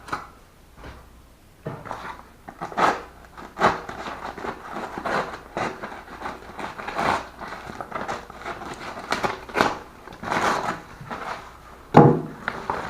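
A package being opened by hand: irregular rustling, crinkling and handling noises of the packaging, starting about two seconds in, with a louder knock near the end.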